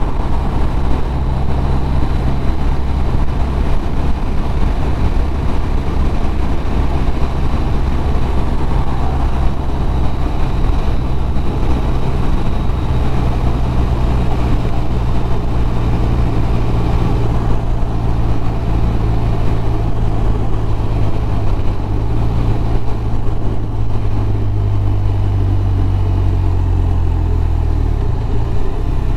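BMW R1200RT boxer-twin engine running at road speed under heavy wind and road noise. The engine note drops lower near the end as the bike slows.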